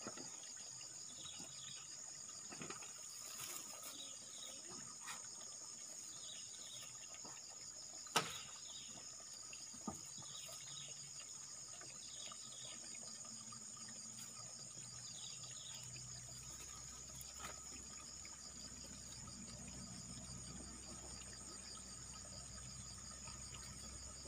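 Steady high-pitched chorus of insects trilling, with short falling chirps repeating about every second. A single sharp click about eight seconds in and a fainter one shortly after; a low rumble comes in past the middle.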